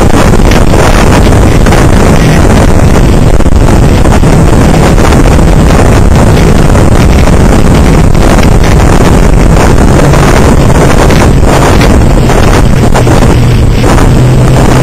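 A small boat's motor running under way in a skiff, with heavy wind buffeting the microphone. Its low steady hum grows stronger after about ten seconds.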